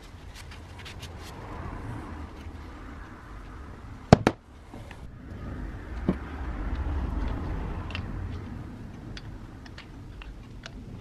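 Angle grinder housing parts being handled on a workbench: scattered light clicks and taps, a sharp double knock about four seconds in, and a softer knock about two seconds later.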